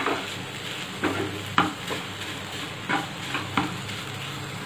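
Wooden spatula stirring grated bottle gourd in ghee in a nonstick frying pan: about five scrapes against the pan over a steady low sizzle, as the mixture's water cooks off.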